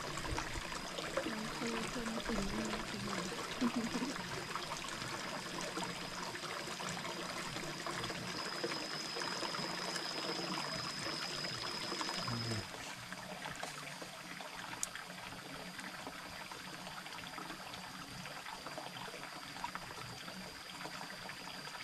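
Stream water trickling and flowing steadily. The sound drops to a lower level a little past halfway.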